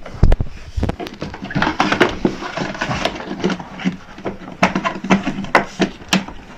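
Repeated knocks, clicks and plastic clatter as the cover on a ride-on toy car is worked back into place, with sharp knocks scattered irregularly throughout.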